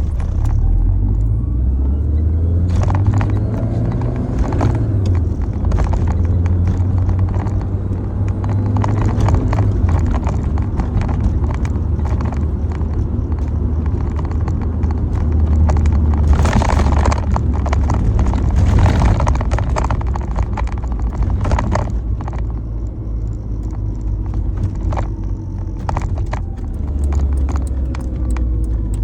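Lancia Delta HF Integrale Evoluzione I's turbocharged 2.0-litre four-cylinder engine and road noise heard from inside the cabin while driving: a steady low rumble, with the engine's pitch rising and falling as it pulls, and frequent small clicks and rattles from the cabin.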